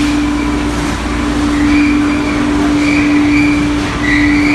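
Steady loud hum of galley machinery, with short high squeals coming and going over it, several times and strongest near the end.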